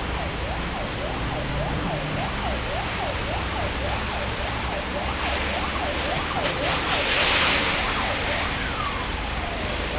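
An electronic siren or alarm whooping rapidly up and down, about three sweeps a second, over the steady hiss of heavy rain; the rain swells louder about three-quarters of the way in, and the siren ends on a long falling tone near the end.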